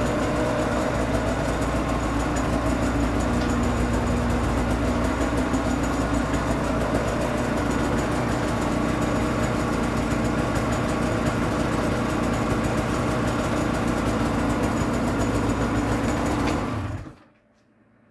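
Polaris Pro RMK snowmobile's two-stroke engine running steadily at idle, then shut off about a second before the end. It runs badly because a connector to the engine computer under the airbox has come loose.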